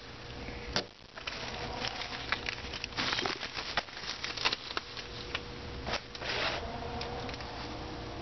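Packaging being handled: plastic wrap, a foam sheet and a cardboard box rustling and crinkling, with many light clicks and taps throughout.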